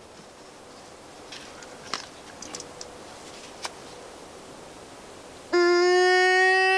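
A few faint clicks and rustles, then about five and a half seconds in a loud, steady, reedy bleat from a deer bleat call starts, used by the hunter to try to coax a buck closer.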